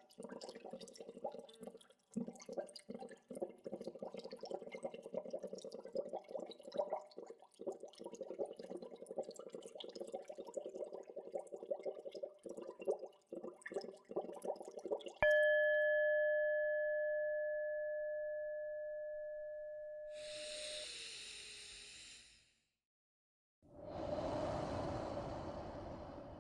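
Gentle bubbling water, a dense stream of small pops and gurgles, stops after about fifteen seconds. It is cut off by a single bell strike that rings out clearly and fades slowly over several seconds. Near the end come two short rushing noises, the second lower and fuller.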